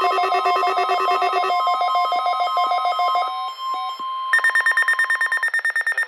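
Several NOAA weather alert radios sounding their alarms at once: fast-pulsing electronic beeps at several pitches over a steady tone. Some units fall silent about a second and a half in and again past halfway, and a higher beeping at about eight beeps a second starts a little after four seconds in.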